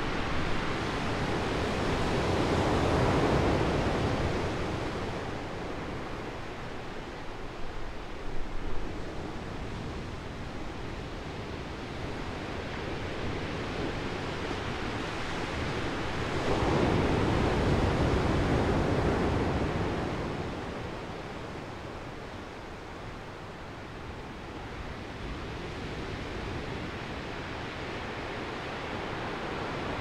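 Ocean surf breaking over rocks and washing up the beach in a continuous roar that swells loud twice, a few seconds in and again around seventeen seconds, with a few brief crackles about nine seconds in.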